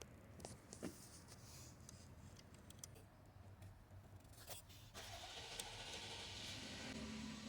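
Near silence with a low hum and a few faint, scattered clicks.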